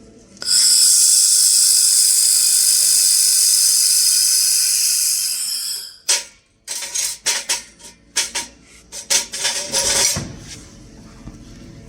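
Handheld laser welder firing: a loud steady hiss for about five and a half seconds, then a string of short hissing bursts that start and stop, as the torch is triggered in short passes.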